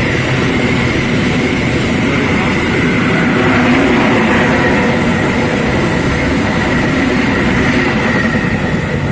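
Train passing at speed close by: a steady, loud rush of wheels on the rails with a thin high tone running through it.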